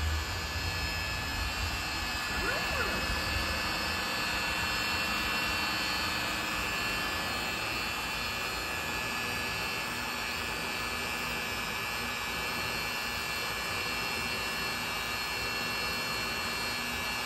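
Trim router spindle on a benchtop Shark CNC machine running at high speed with a steady high-pitched whine, on a shallow, slow first test cut in wood.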